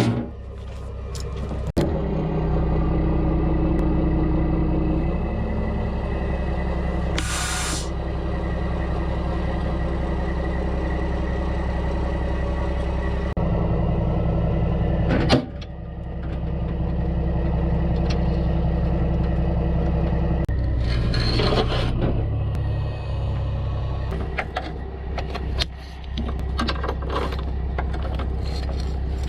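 Mack semi truck's diesel engine running steadily, its tone shifting a few times. Two short hisses of air come from the truck's air system, one about seven seconds in and one about twenty-one seconds in, and there are a couple of sharp clicks.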